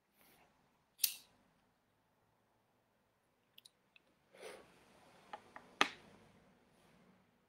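Faint sounds of a man smoking a cigarette: a short breath about four and a half seconds in, and a few sharp clicks, the loudest about a second in and near six seconds.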